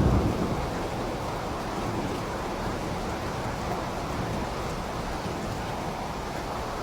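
Steady rain falling, an even hiss with no rhythm, with a short low rumble swelling at the very start.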